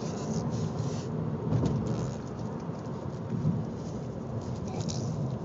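A baby blowing raspberries, her lips buzzing wetly with hardly a break.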